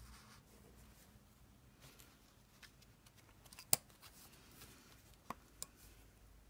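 Faint rustling of paper and thread with a few small sharp clicks, the loudest about halfway through and two lighter ones soon after, as a needle and thread are worked through the holes of a paper signature being hand-sewn into a journal.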